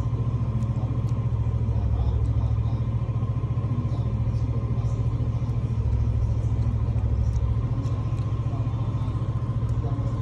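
A steady low mechanical hum that runs on unchanged, with a faint steady whine above it and a few faint small clicks.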